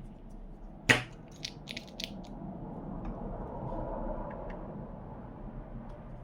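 One sharp click about a second in, then a few lighter clicks and short scrapes from hand tools working on a circuit board while solder is cleaned off the pads.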